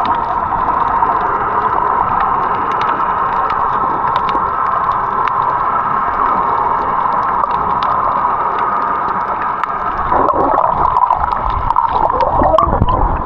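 Steady rush of water, turning rougher in the last few seconds into gurgling and bubbling with short warbling glides.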